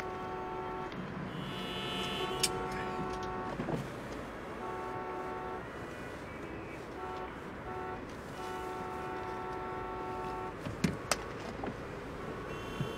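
Traffic noise with car horns sounding on and off in long held notes.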